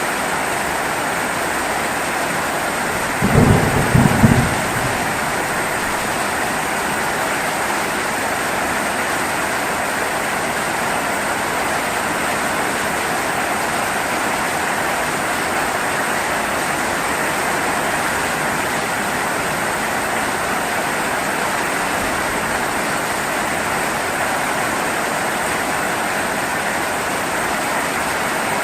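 Heavy rain falling steadily, with a short low rumble of thunder about three seconds in, the loudest moment.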